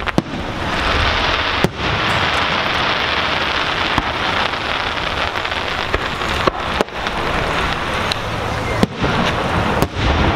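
Aerial firework shells bursting with sharp bangs, about eight of them a second or two apart, over a steady loud hiss.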